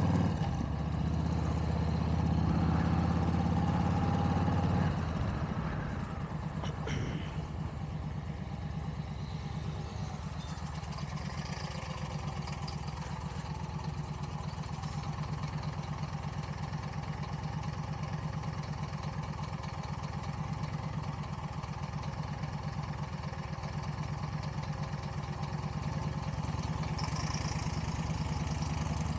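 Cruiser motorcycle engine running as the bike rolls, then dropping about five seconds in to a steady, rhythmic idle.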